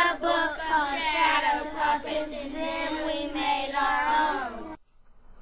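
A child's voice singing long held, wavering notes, which stop sharply near the end.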